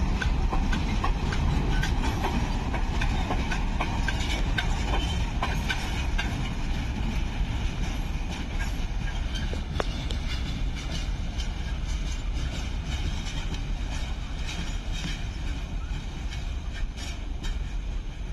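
Empty goods wagons and the brake van of a departing freight train rolling over the rails, wheels clacking over the joints. The sound fades slowly as the train pulls away.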